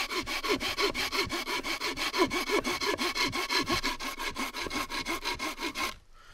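Bahco Laplander folding saw cutting halfway through a piece of wood in fast, even back-and-forth strokes. The sawing stops near the end.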